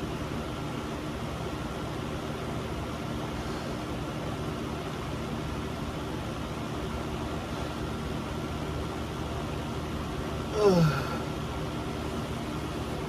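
Steady room hum, like a fan or air conditioner. About ten and a half seconds in, a short vocal sound glides up and then down in pitch.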